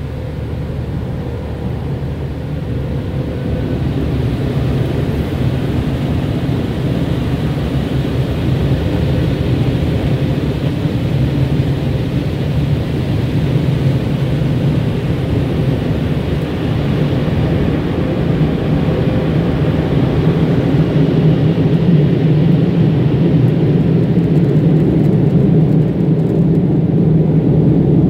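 Car wash air-dryer blowers running, a steady loud roar heard from inside a pickup's cab, growing gradually louder.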